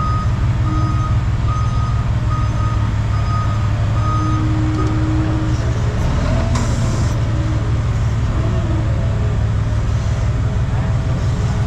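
Forklift's reversing alarm beeping at a steady pace over the low, steady hum of the running machine; the beeping stops about halfway through, followed by a short hiss.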